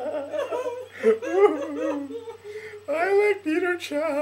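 A man laughing hard: a run of voiced laughs that swoop up and down in pitch, over a faint steady low hum.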